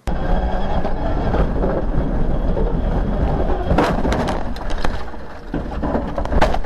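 Loud rumbling and rattling inside a rally car's cabin during a crash, with sharp knocks about four seconds in and again near the end.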